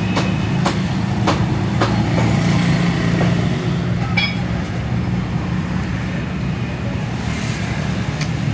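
A butcher's knife cutting a rabbit carcass on a wooden chopping block, knocking sharply on the wood several times in the first two seconds and once more about four seconds in. Under it runs the steady hum of an idling engine.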